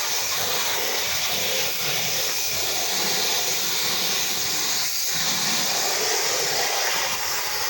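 Pressure-washing spray hissing steadily as the house-wash solution is sprayed onto the wall.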